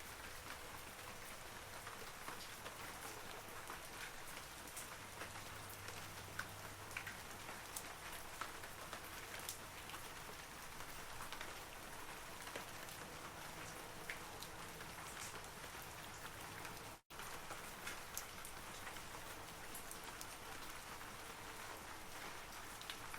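Steady rain falling on forest trees, with many scattered louder drops ticking through the hiss. The sound cuts out completely for an instant about three quarters of the way through.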